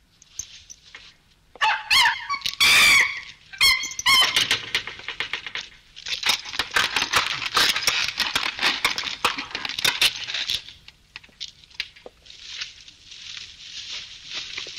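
Animal sounds from a film soundtrack played over a hall's speakers. A wavering, high-pitched animal cry comes about two seconds in, then several seconds of rapid clicking and clatter, then a steadier hiss near the end.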